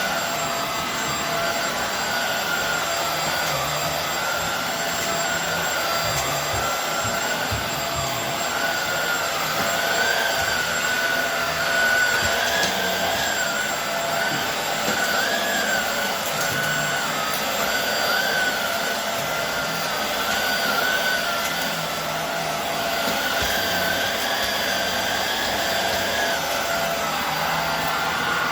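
Hoover Air Steerable WindTunnel upright vacuum cleaner running steadily over a rug, its motor whine wavering slightly up and down in pitch.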